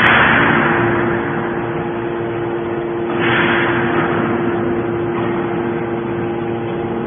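Hydraulic baler's motor and pump running with a steady hum. Two bursts of hissing noise come at the start and about three seconds in, each fading over a second or so.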